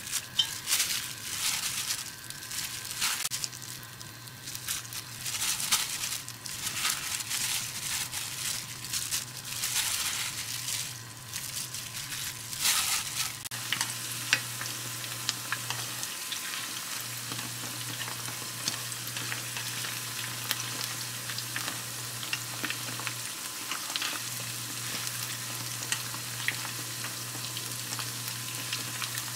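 Food frying in hot oil, a steady sizzle with scattered crackles and clicks, busier in the first half. A low steady hum starts a few seconds in and drops out briefly twice.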